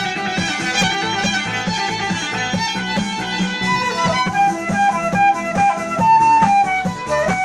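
Instrumental pop arrangement with a steady beat and bass line. About four seconds in, the dense backing thins and a lead melody stands out.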